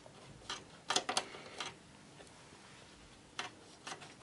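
Scattered light clicks and ticks of the Antec Kühler H2O 920 cooler head and its mounting screws being turned and seated by hand. There are a few clicks around the first second and two more near the end.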